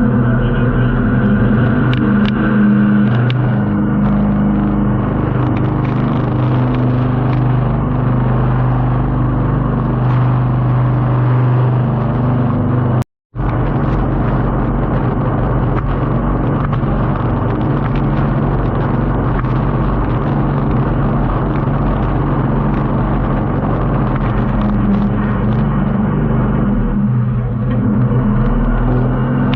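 Jet boat engine running steadily at speed, a loud, even engine drone. It drops out for a split second about halfway through.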